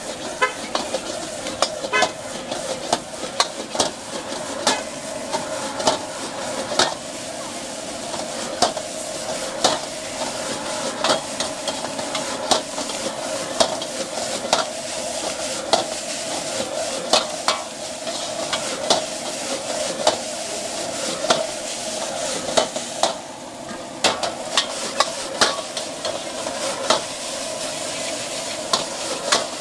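Fried noodles sizzling in a wok while a metal wok ladle stirs and tosses them, clacking against the wok's side in quick, uneven strikes about once a second.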